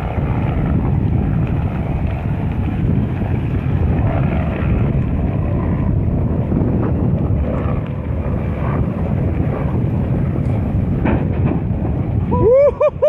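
Steady wind rumble on the microphone over choppy sea. Near the end, a loud quick run of about four short rising-and-falling calls.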